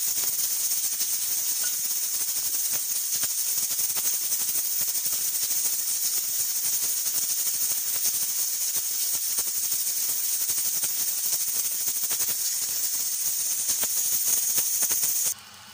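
Pressure cooker venting steam at full pressure with beef cooking inside: a loud, steady high hiss with a dense crackle. It cuts off suddenly near the end.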